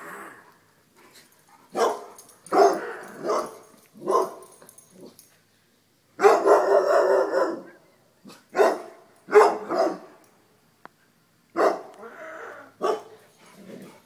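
Dogs barking in loud separate barks at uneven intervals, with one longer run of barking about six seconds in. The barks are alarm barking at a mounted buck's head that the dogs shy away from.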